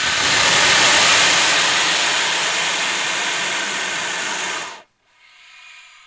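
A cobra's hiss: a long, loud breathy hiss that swells in the first second and cuts off about five seconds in, followed by a fainter, shorter hiss near the end.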